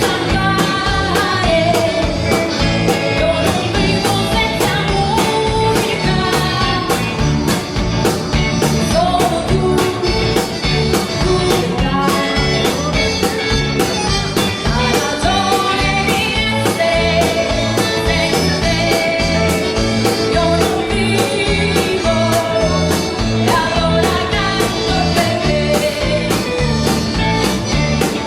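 A band playing upbeat dance music with a steady drum beat, bass and a melody line over it.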